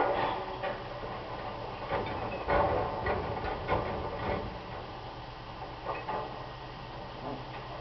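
Garbage truck loading from street waste containers: a series of metallic clanks and rattles as bins are handled and emptied, over the steady low running of the truck's engine.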